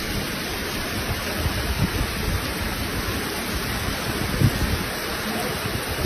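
Floodwater rushing and churning over a concrete weir in a swollen river: a steady rushing noise, with low gusts of wind buffeting the microphone.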